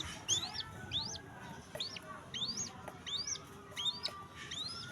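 A bird of prey giving a rapid series of shrill calls, each one rising steeply and falling back, about two a second.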